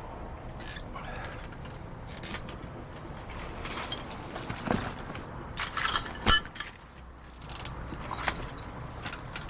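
Bottled drinks clinking and rattling as they are picked up and moved, in irregular short clatters with a couple of sharp knocks about six seconds in.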